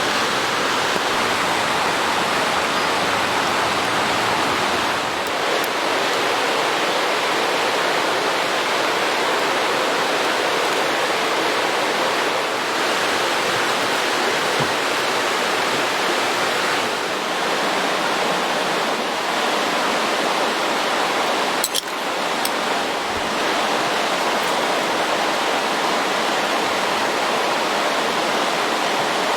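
Steady rushing of running water, like a mountain stream, with a single sharp click about twenty-two seconds in.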